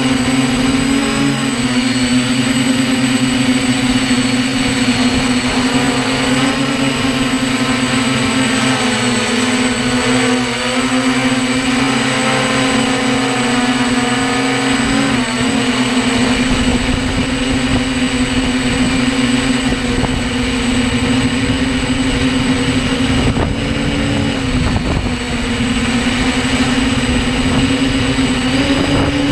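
Electric hexacopter's brushless motors and propellers heard from on board: a loud, steady drone whose pitch wavers slightly with throttle. About halfway through, a low rumbling buffet joins in.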